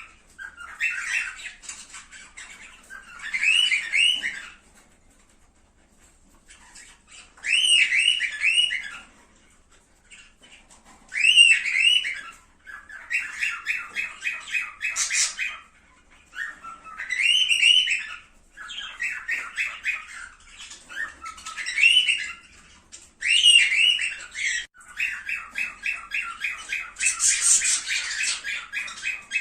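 Cockatiels calling in bouts: repeated up-and-down whistled squawks, with fast chattering runs between them and short pauses.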